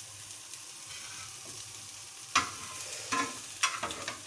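Spiced scrambled egg sizzling in a hot pan while a metal spoon stirs and scrapes through it, with a few sharp knocks of the spoon in the second half.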